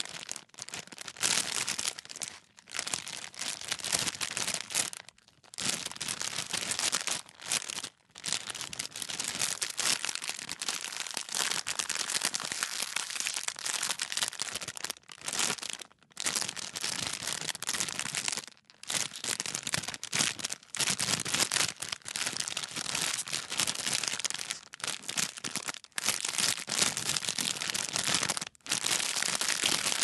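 Thin plastic wrapper being crinkled and crumpled, a dense crackling rustle broken by short pauses every few seconds.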